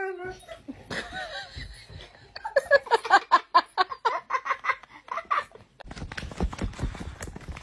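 A person laughing hard in quick, breathy bursts, about four or five a second, for about three seconds. It gives way near the end to a fainter, steady rustling and scratching noise.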